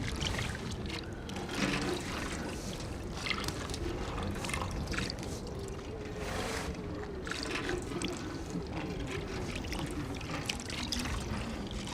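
Water poured and splashing irregularly as someone washes their feet.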